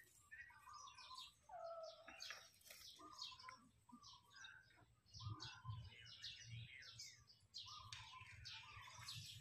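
Faint chirping of small birds, many short quick calls scattered throughout.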